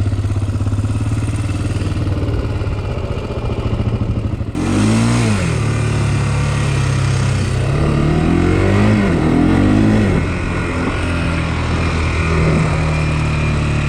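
A single-cylinder four-stroke ATV engine runs steadily at low revs. About four and a half seconds in it picks up as the quad moves off, its revs rising and falling several times through throttle changes before settling to a steadier note.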